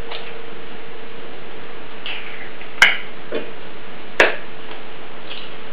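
Table knife blade tapping raw eggs to crack the shells: two sharp taps, about three seconds in and again about a second later, over a steady hum.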